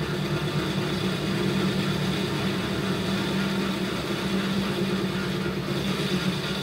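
Metal lathe running with its chuck spinning while a negative carbide insert cuts away a weld on the part: a steady machine hum with a steady high whine over the noise of the cut.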